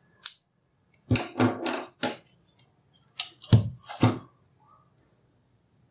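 A ruler and paper handled on a desk: a run of short rustles and clicks, then two firmer knocks a little past the middle as the ruler is laid on the sheet.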